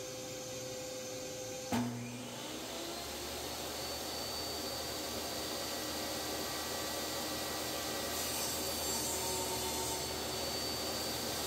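Portable table saw switched on about two seconds in, its motor spinning up and then running steadily. From about eight seconds it rips through an oak board, and the cut adds a brighter hiss.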